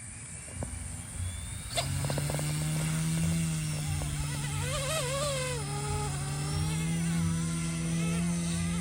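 Goosky S2 Legend RC helicopter's direct-drive brushless motors and rotor blades starting up with a click about two seconds in, then running at a steady hum that rises slightly in pitch later on.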